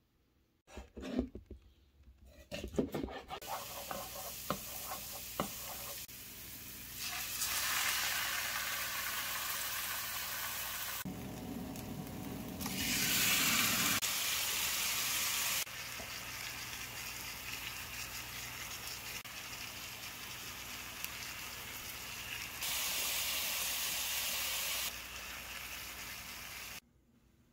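Garlic, then pieces of fish and squid, sizzling in hot oil in a frying pan, a steady hiss that grows louder and quieter in sudden steps and stops abruptly near the end. A few knocks and clicks come in the first few seconds.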